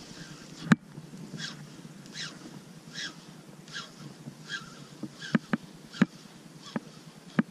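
Handling of a spinning rod and reel. There is one sharp click about a second in, then soft swishes repeating a little faster than once a second, and a few more sharp clicks near the end.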